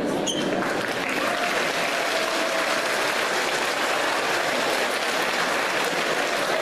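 Audience applauding, the clapping building up in the first half second and then continuing steadily.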